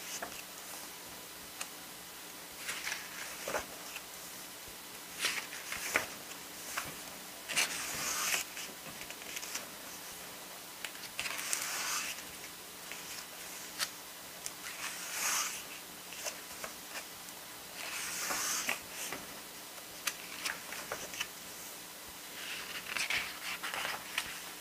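Glossy pages of an album photobook being turned by hand: a papery swish every few seconds, with small clicks and rustles of handling in between.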